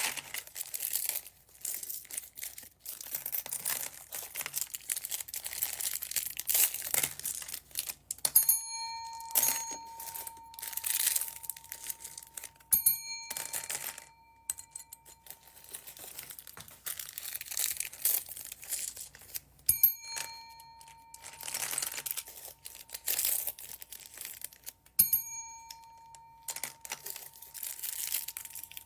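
Plastic bags of beads crinkling and rustling as they are handled and torn open. A bell-like ding rings out four times, each lasting about a second.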